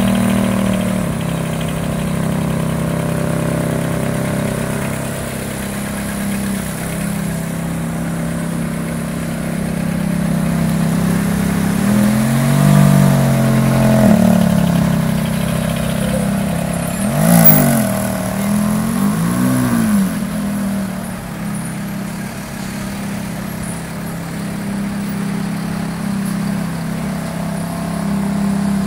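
Ferrari F430 Spider's V8 idling at the tailpipes, blipped up and back down three times in the middle, with a sharp crack on the second blip.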